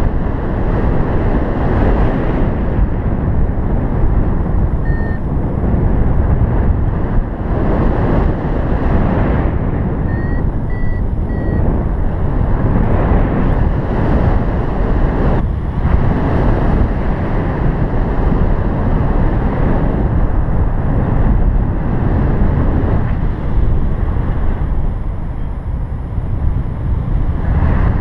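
Airflow rushing over the microphone in paraglider flight, a loud steady rumble. A paragliding variometer gives a single short beep, then a few seconds later a short run of beeps that rise slightly in pitch, its signal of the glider climbing in lift.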